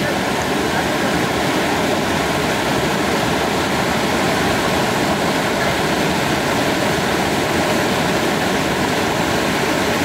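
Steady rushing of a large waterfall, water pouring and splashing down over rock.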